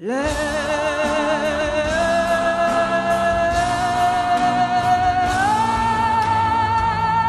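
Choir and band come in together all at once after a full stop, a lead singer holding one long belted note with vibrato that steps up in pitch twice, over sustained choir voices with piano, bass and drums.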